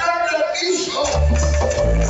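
Cumbia music played loud over a sonidero sound system. The bass drops out for about a second, then the heavy bass beat comes back in.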